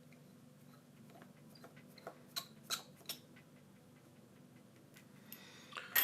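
Faint, scattered clicks and light taps of small repair tools and the phone being handled on a work surface, with a few sharper clicks about two to three seconds in.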